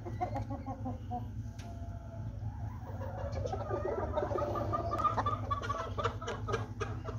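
Chickens clucking in many short, overlapping calls that grow busier from about three seconds in, over a steady low hum.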